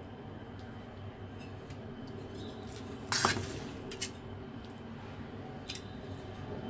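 A stainless steel bowl clattering once on the stovetop about three seconds in, followed by two lighter clinks, over a faint steady hum.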